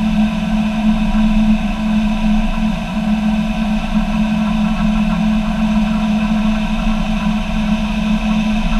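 Motorboat engine running steadily at towing speed: a constant drone with a strong low hum, over a rush of water.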